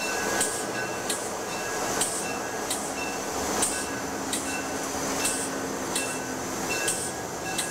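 Locomotive cab interior while rolling slowly: steady running rumble, with a sharp click and a short ring repeating about every 0.8 s.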